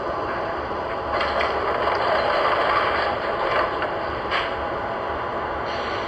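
MTH O gauge R12 subway model train running along its track: a steady running noise that grows louder from about a second in, with a rattle and a few sharp clicks, then eases back to the steady run.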